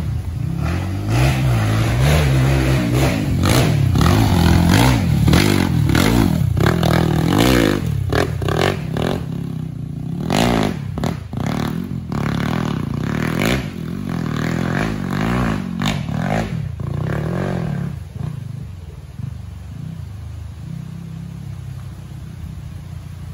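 Honda CRF bored-up single-cylinder dirt bike engine revving hard, its pitch rising and falling again and again as the bike is ridden. For the last few seconds it settles to a lower, steadier drone.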